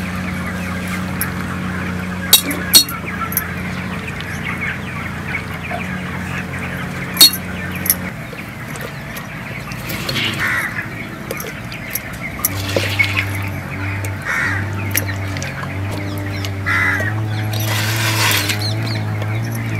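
Oily pickle being scooped by hand from a clay pot into a glazed ceramic jar: soft wet handling noise with a few sharp clicks, the loudest near the start. Chickens and other birds call now and then over a low steady drone.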